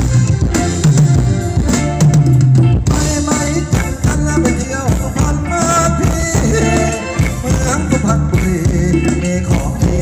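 Thai ramwong dance music played loud by a live band: a drum kit keeping a steady beat under a bass line and melody.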